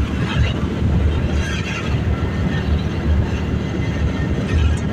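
Riding noise from a motorcycle: a continuous, uneven low rumble of wind on the microphone and the engine running, with passing traffic.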